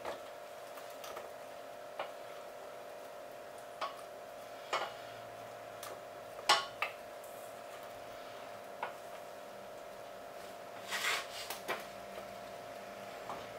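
Wooden spoon stirring apples in a stainless steel saucepan, knocking against the pan now and then in short single taps, the loudest about six and a half seconds in and a few close together near the end. A steady hum runs underneath.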